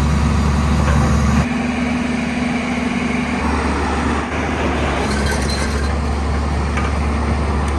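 JCB tracked excavator's diesel engine running as the machine drives down off a low-bed trailer, a steady low drone throughout.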